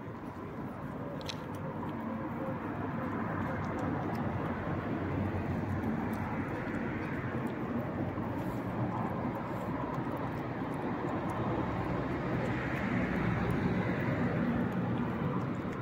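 A distant engine rumble, passing traffic or an aircraft overhead, that swells slowly over several seconds and is loudest near the end. Faint ticks of a cat chewing and licking wet food sound over it.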